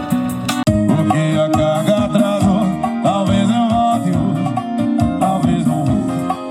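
A song with singing and a steady percussive beat played loud through a car's aftermarket sound system with two 15-inch subwoofers, 10-inch mid-bass speakers, horn drivers and tweeters. There is a brief break just over half a second in, and the music then carries on.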